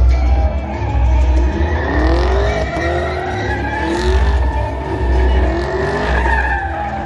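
Chevrolet Camaro SS's V8 revving up and down while it spins donuts, rear tires squealing and skidding in a burnout.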